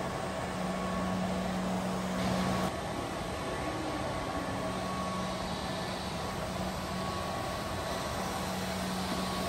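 Sinto autonomous floor-scrubbing robot running as it drives across a tiled floor: a steady motor hum over an even whirring hiss, briefly louder about two seconds in.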